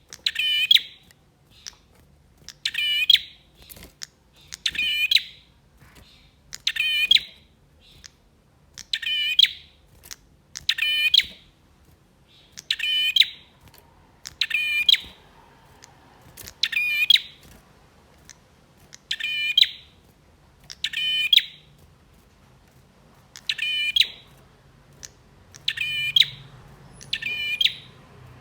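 Male prenjak singing a short, rapid, buzzy trilled phrase over and over, about one phrase every two seconds, in the loud, excited song that keepers use to stir a caged prenjak into singing.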